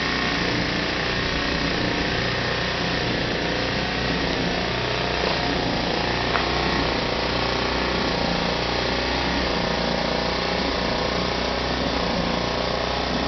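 Small 1,000-watt portable generator running steadily under load, powering the electric motor of a water-well pump jack.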